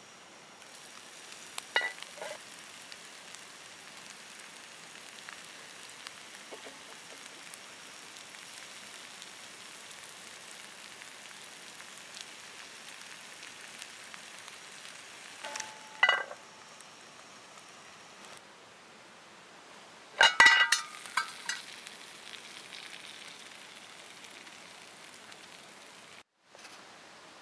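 Sliced potatoes with chanterelles and melting cheese sizzling steadily in a cast iron skillet. A few sharp metallic clinks about two seconds in and around sixteen seconds, and a louder rattling clatter about twenty seconds in.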